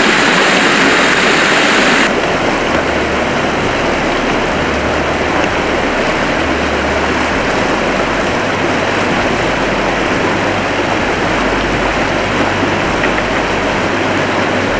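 Shallow, fast mountain river rushing over rocks, a steady loud rush of water. About two seconds in the sound changes abruptly from a brighter hiss to a fuller, less hissy rush.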